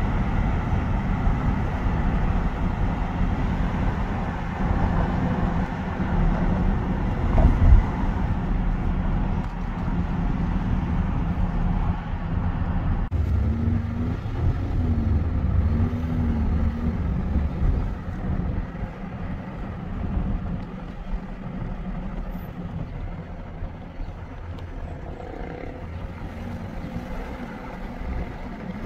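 Steady road and engine noise of a moving car, heard from inside the cabin, with a single knock about seven seconds in.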